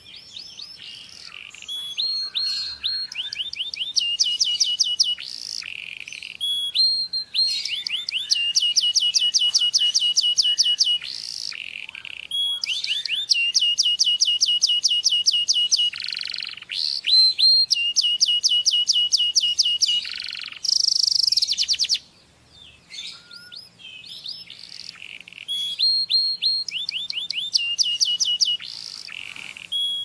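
Domestic canary singing a long, continuous song of fast trills, each phrase a rapid run of the same high note repeated before switching to the next. There is a brief break about two-thirds of the way through.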